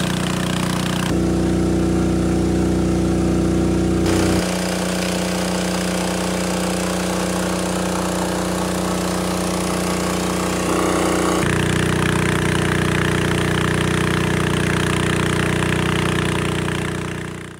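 Small engine of a gold dredge running steadily, with water rushing through the dredge's sluice. The sound shifts abruptly a few times and fades out at the end.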